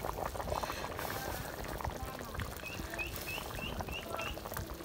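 Thick chicken curry sauce boiling hard in a pot, a steady bubbling and popping.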